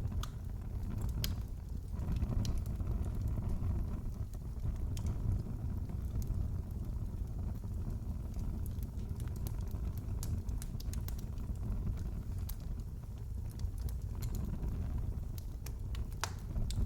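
Wood fire in a fireplace crackling: a steady low rumble with scattered sharp snaps and pops, a couple of louder ones about a second in and near the end.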